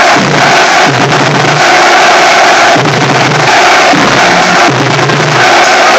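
Marching drumline playing: snare drums rattle out a dense, continuous pattern while deep drum notes sound every second or two.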